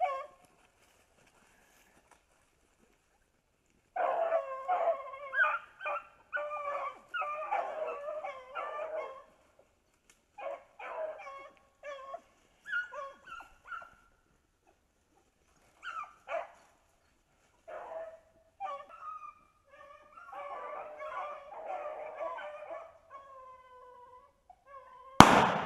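A pack of beagles baying on a rabbit's track, several voices overlapping and coming in waves, starting about four seconds in. Near the end comes a single loud pump-action shotgun shot, the kill of the rabbit being run.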